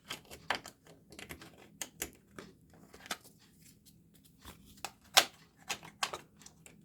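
Irregular light clicks and taps of hard plastic: a refrigerator's plastic cover cap being handled and pushed at its slot, with one sharper click a little after five seconds.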